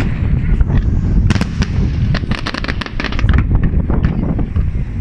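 Aerial fireworks display: a run of sharp shell bursts and crackling reports over a constant low rumble, with a few separate bangs at first and the reports coming thick and fast after about two seconds.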